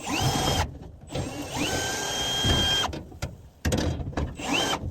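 Power drill running in three short bursts, the second the longest, each with a steady motor whine that drops in pitch as it starts.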